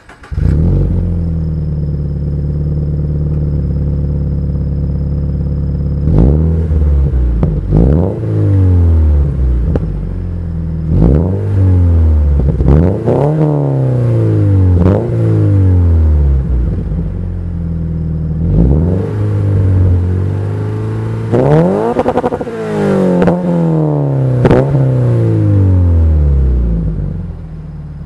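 2015 Scion FR-S's flat-four engine through its TRD cat-back exhaust, idling steadily, then free-revved with about ten quick throttle blips that rise and fall back to idle, one held longer and higher a little past the middle. It has a smooth tone without rasp.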